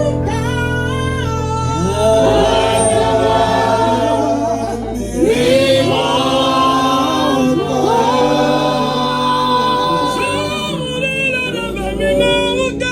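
Choir singing gospel music, several voices on sliding, wavering notes over steady held low notes.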